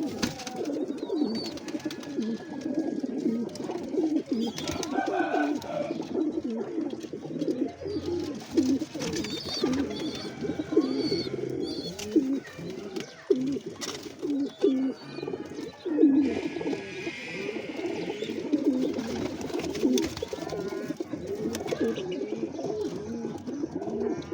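A flock of domestic pigeons cooing in their cage, many low, rolling coos overlapping without a break.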